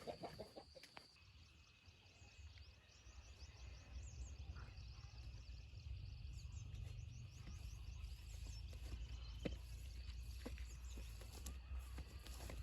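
Faint rural outdoor ambience: birds, likely including chickens, calling in short chirps, with a steady high drone that sets in about a second in, a low rumble underneath and a few light knocks.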